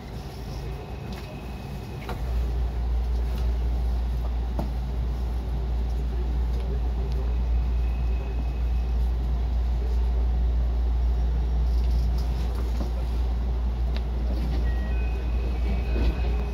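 Cabin noise of a JR West 221 series electric train running: a steady deep rumble that gets louder about two seconds in and then holds, with a faint high tone coming and going and an occasional small click.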